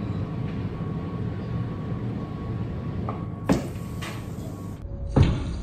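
A metal fork knocks sharply against the deep fat fryer about three and a half seconds in and again near the end, over a steady low hum.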